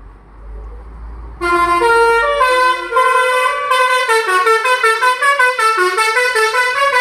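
Basuri V3 multi-tone "telolet" air horn on a bus or truck, playing a rapid stepping melody that starts about a second and a half in, over the low rumble of a heavy diesel engine.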